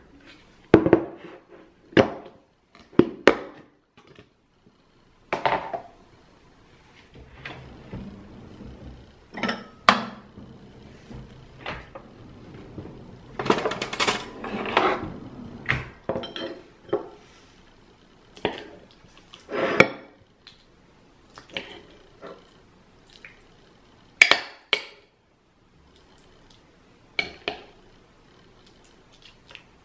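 Kitchen dishes and cutlery clinking in a series of sharp, separate knocks. About 14 seconds in there is a longer rattle of metal spoons in a drawer's plastic cutlery tray as one is picked out. Near the end a spoon clinks against a glass container and a bowl as food is served.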